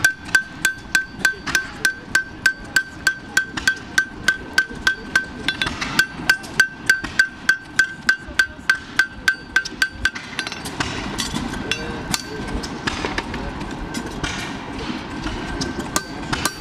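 Farrier's hammer striking a steel draft horseshoe held on the anvil horn, steady blows at about three a second, each with a bright anvil ring. The hammering stops about ten seconds in.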